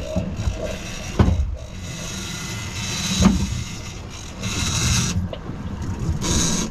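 Twin outboard motors of a fishing boat running steadily, with two short thumps about a second apart and a high whine that comes in near the end.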